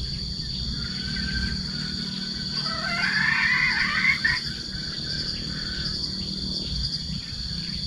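A red junglefowl calls once, about two and a half seconds in, for under two seconds, over a steady high-pitched insect drone.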